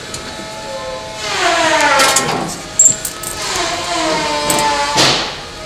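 Heavy electric drill boring into a wooden hull plank, its motor revving and winding down in falling pitch several times, with a few sharp knocks in between.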